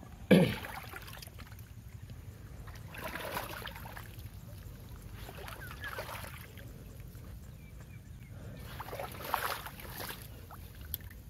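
Footsteps in a waterlogged paddy field: wet mud and shallow water sloshing and squelching in a few separate bursts a few seconds apart, over a low steady rumble. The loudest event is a sudden thump about half a second in.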